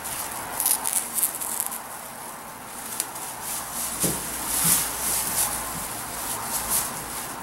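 Thin plastic masking sheeting crinkling and rustling as it is smoothed and pulled over a car body by hand, in irregular crackles with a few louder ones.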